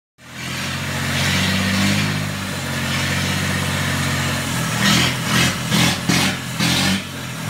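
Freshly rebuilt three-cylinder diesel engine of a small Chinese 4x4 tractor running on its first start after the rebuild, steady at first, then with a series of short louder pulses in the second half.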